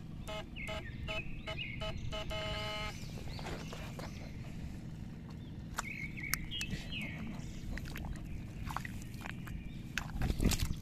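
A bare hand pushes into wet rice-paddy mud at an eel burrow, with wet squelching thumps about ten seconds in, the loudest part. Behind it is a quiet outdoor background with short bird chirps in the middle and a pulsing pitched tone during the first three seconds.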